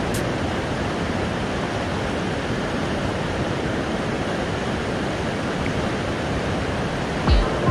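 Steady rush of a mountain stream's flowing water, with a couple of low thumps near the end.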